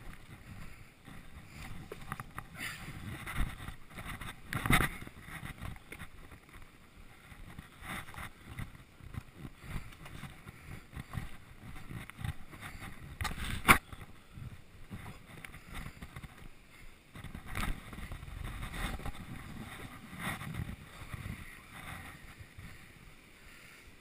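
Rubbing, handling and wind noise on a body-worn action camera's microphone as the wearer moves along, with a few sharp knocks, the loudest about fourteen seconds in and another about five seconds in.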